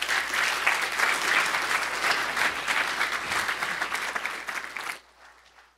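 Audience applauding at the close of a talk: many hands clapping in a dense patter, cutting off suddenly about five seconds in.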